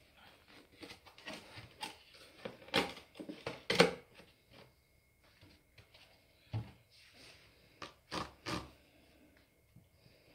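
A cat batting and pawing at a sisal scratching post with a hanging ball toy: soft scuffs and scratches broken by a few sharp knocks. The loudest knock comes about four seconds in, and more follow around eight seconds.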